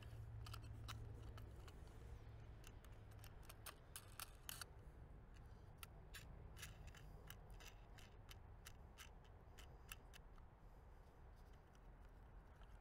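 Faint, irregular small clicks and ticks of a chronograph being strapped onto a potato cannon's barrel, a few clicks a second at most, over a low hum.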